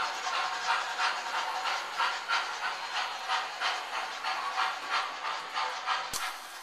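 MTH model steam locomotives' built-in sound chuffing steadily, about three hissing chuffs a second, growing slightly fainter. A sudden click breaks in near the end.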